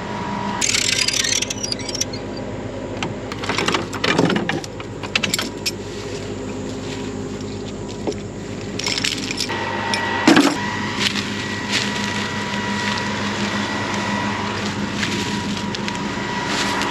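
A steady machine hum, like an engine or motor running, with intermittent clinks, rattles and knocks of hand work on metal parts, louder about a second in, around four seconds in and again near ten seconds.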